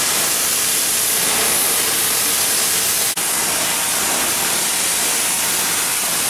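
Cutting torch burning through a ship's steel hull plate, cutting out a deteriorated plate: a loud, steady hiss, broken very briefly about halfway through.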